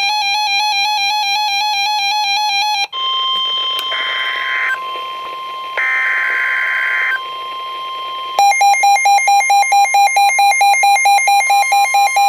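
NOAA Weather Radio alert tones: a buzzy electronic alarm beeping in rapid pulses, then about five seconds of radio hiss carrying a steady warning tone with two short bursts of screechy data tones. The pulsing alarm beeps start again about eight seconds in.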